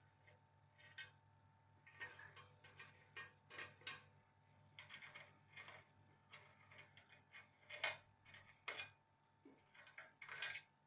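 Small metal parts clicking and tapping irregularly on an aluminium T-slot table as T-nuts and bolts are fitted to fix down a rotary axis unit, with a few sharper clicks in the second half.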